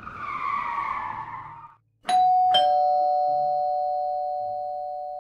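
A brief noisy swish that falls slightly in pitch, then a two-note ding-dong doorbell chime about two seconds in: a higher note, then a lower one, both ringing on and slowly fading.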